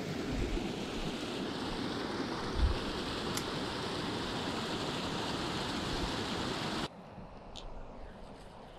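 Steady rush of flowing water, with two low thumps early on, cutting off abruptly about seven seconds in to a much quieter background.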